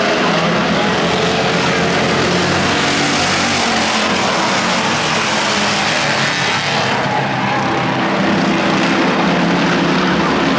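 A pack of pure stock race cars racing around an oval track, their engines blending into one loud, steady sound. For a few seconds in the middle the sound turns brighter and hissier, then eases back.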